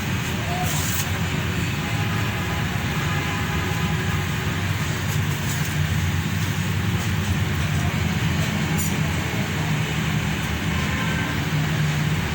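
A steady low mechanical drone runs throughout, with a few faint clicks and taps over it.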